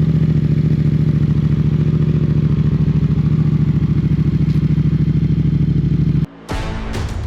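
Yamaha R7's 689 cc parallel-twin idling steadily through an aftermarket M4 exhaust just after a cold start. It cuts off abruptly a little over six seconds in and music takes over.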